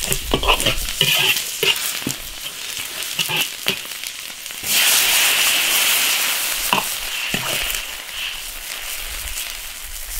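Beef tripe sizzling in a hot iron wok with a metal ladle scraping and clinking as it is stirred. About 4.7 s in, liquid goes into the wok with a sudden loud hiss that slowly fades as it comes to a boil.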